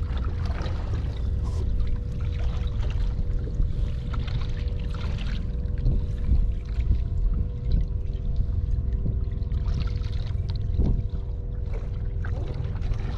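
Water splashing and lapping against the hull of a small fishing skiff, with wind rumbling on the microphone and a steady faint hum underneath.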